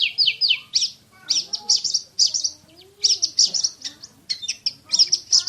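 Oriental magpie-robin singing in the fast 'tembakan' (shooting) style: tight runs of rapid, repeated high, sharp notes, with a short pause about halfway through.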